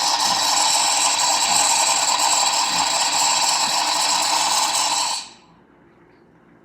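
Mr. Coffee Cafe Barista espresso machine running with a loud, steady hiss that cuts off suddenly about five seconds in.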